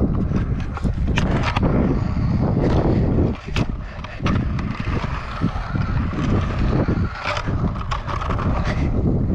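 Stunt scooter wheels rolling over rough concrete: a steady rumble with several sharp clicks as the wheels cross cracks and joints in the slab.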